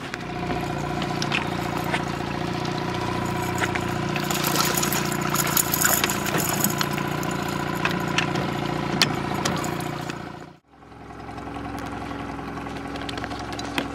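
Boat motor running steadily at low trolling speed, with a few light clicks on top. About ten and a half seconds in the sound drops out for a moment, then a similar engine hum comes back at a slightly different pitch.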